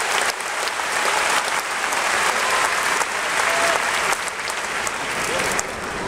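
Large stadium crowd applauding: dense, steady clapping from the stands.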